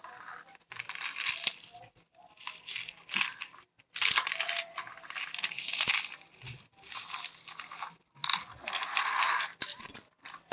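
A pile of metal coins clinking and rattling as a toy excavator is pushed and scooped through them by hand, in irregular bursts with short pauses between.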